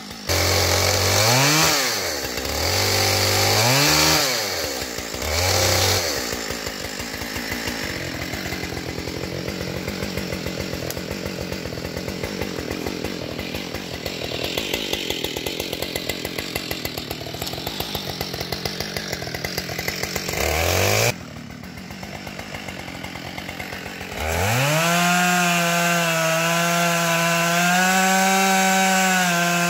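Chainsaw blipped several times, then cutting into a downed tree for about fifteen seconds with the engine pulled down under load. It drops back briefly, then runs at a steady high pitch for the last few seconds.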